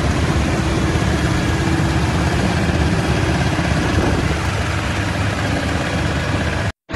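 Heavy diesel truck engines running steadily, with a deep low rumble and road and tyre hiss, from Mercedes-Benz heavy-haul tractor units moving a convoy at low speed. The sound cuts out for a moment near the end.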